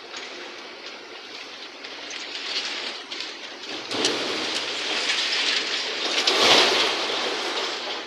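Excavator tipping a bucket of demolition rubble into a steel tipper truck tray: a pouring, rattling clatter with sharp knocks, loudest about six and a half seconds in.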